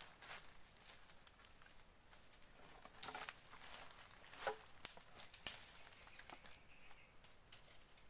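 Dry twigs and kindling being handled and snapped: irregular cracks, snaps and rustles as sticks are pushed in under a stick-built rack, with a faint steady high hum behind.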